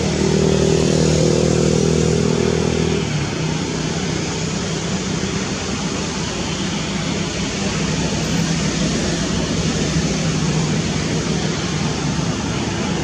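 A steady hiss with a low, even motor-vehicle engine hum beneath it. The hum is louder for about the first three seconds, then carries on more faintly.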